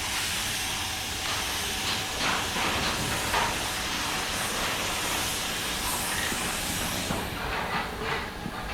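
Compressed-air spray gun hissing steadily as it sprays undercoating onto a car body, the hiss easing off about seven seconds in.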